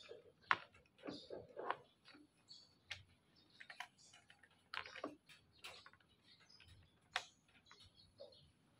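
Irregular sharp clicks and taps from a plastic number-plate holder and plate being handled and pressed into place. The loudest clicks come about half a second in and near the end.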